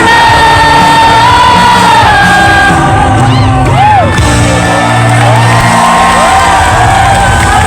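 Loud live praise music with singing over a steady bass; a long note is held at the start. A short whoop rises and falls a little before the middle.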